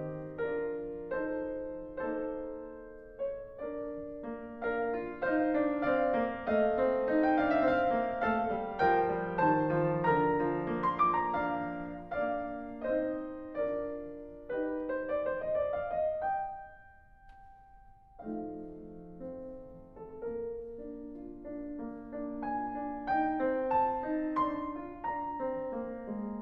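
Background piano music, single notes and chords struck and fading, with a brief pause about two-thirds of the way through.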